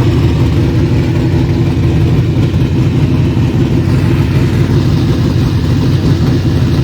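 Carbureted 434-cubic-inch V8 running steadily at a loud, deep idle. The engine is freshly installed and not yet tuned.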